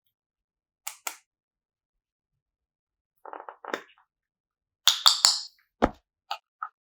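Slime and clay being handled: scattered sharp clicks and crackles with silence between, loudest in a quick run about five seconds in, followed by a dull thump.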